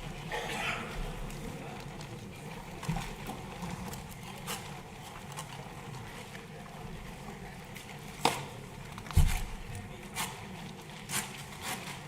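Background hum of a large hall with scattered clicks and knocks: a sharp click about eight seconds in and a low thud about a second later.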